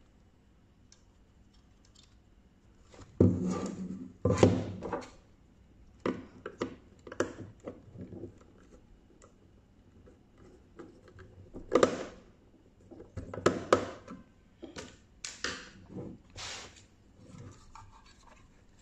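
Irregular knocks, taps and rubbing as a small metal decoder box and its wires are handled and its terminal screws are tightened with a screwdriver. The loudest knocks come a little after 3 s, around 4.5 s, and twice more near 12 and 13.5 s.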